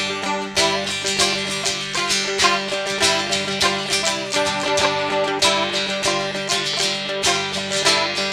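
An acoustic string band playing an instrumental passage of the song, with quick plucked notes over sustained chords and no singing.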